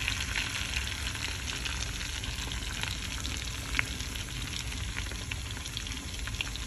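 Hot sauce sizzling in melted butter in a pan as it is stirred: a steady crackling sizzle with scattered sharp pops.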